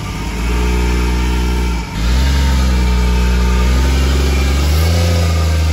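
Jeep Cherokee XJ's engine running at low, steady revs as it creeps forward under light throttle, dipping briefly about two seconds in and picking up slightly near the end as the load comes on.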